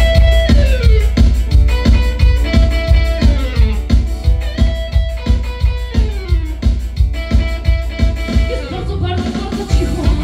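Live dance band playing an instrumental intro: a steady drum beat about twice a second under keyboard lines with held notes and downward slides. A woman's singing voice comes in near the end.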